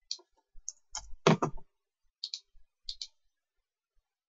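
Computer mouse clicks: a string of short, sharp clicks, several in quick press-and-release pairs, with one louder, fuller knock about a second in.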